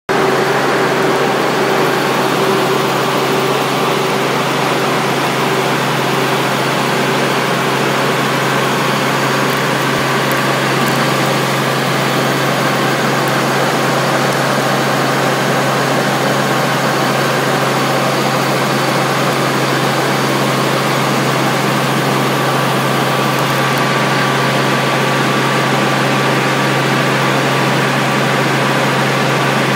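Robinson R44 Raven II helicopter in cruise flight, heard from inside the cabin: its Lycoming IO-540 six-cylinder engine and rotors make a loud, steady drone with a constant low hum that does not change.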